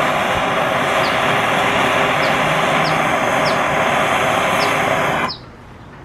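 Propane torch flame hissing steadily as it heats aluminium to melt an aluminium brazing rod into a slit. The hiss cuts off suddenly about five seconds in.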